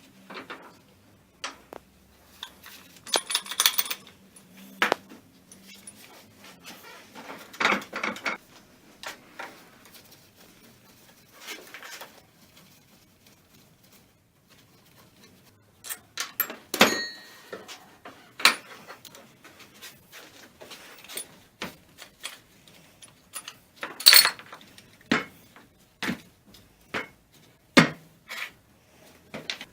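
Metal parts of a car starter motor and hand tools being handled: irregular sharp clinks and clicks, short stretches of scraping rattle, and a few louder knocks.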